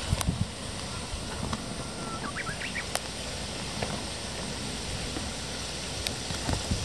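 Outdoor ambience of wind and rustling vegetation, a steady hiss, with a short high bird chirp about two seconds in and a few faint clicks.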